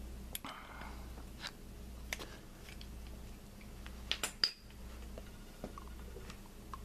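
Scattered light metal clinks and clicks, as of hand tools or engine parts being handled, with a quick cluster of them about four seconds in, over a steady low hum.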